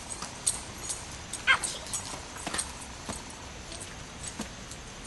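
A dog gives one short high-pitched yelp about a second and a half in, amid scattered light clicks and taps.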